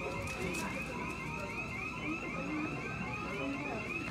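Electronic alarm tone beeping continuously as a rapid, evenly repeating series of short rising chirps, under faint background chatter.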